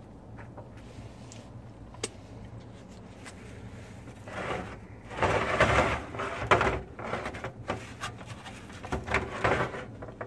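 Disposable aluminum foil pans being handled on a metal grill grate, crinkling and scraping in irregular bursts that come mostly in the second half, with a sharp click about two seconds in.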